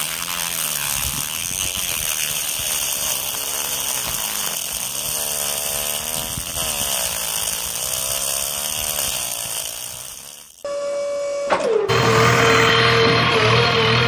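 Small DC toy motor whirring as it spins a plastic drill bit down into sand, its pitch wavering up and down under the load. About ten seconds in it stops abruptly and a different steady tone takes over.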